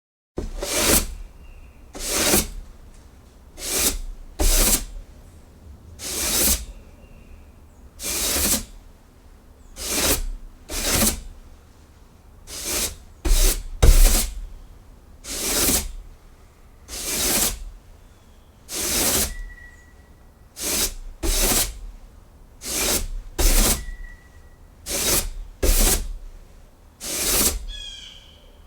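Broom sweeping a wooden porch: about twenty brisk strokes of bristles swishing across the boards, roughly one every second and a half and sometimes in quick pairs, several with a dull knock of the broom against the wood.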